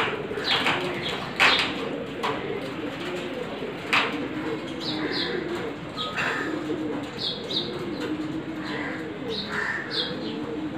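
A flock of domestic pigeons cooing, several birds overlapping in a continuous low, wavering burble. A few sharp clicks come in the first four seconds, and short high chirps break in now and then in the second half.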